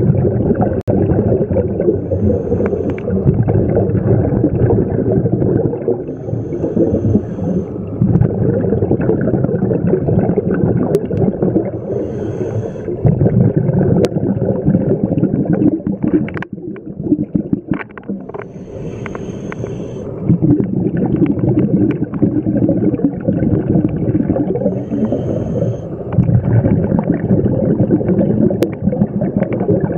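Underwater sound of scuba divers' breathing: exhaled bubbles from the regulators rumbling and gurgling in long surges, with a faint high hiss every few seconds and a short lull about two-thirds of the way through.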